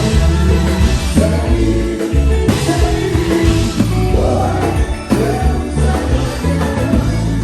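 Haitian konpa band music with a heavy, prominent bass guitar line under drums and singing.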